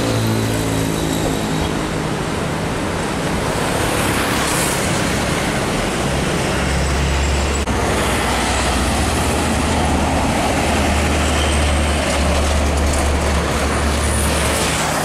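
Busy highway traffic with heavy trucks and motorcycles passing: a steady rush of engine and tyre noise. A deep diesel truck engine drone comes in about six seconds in and holds.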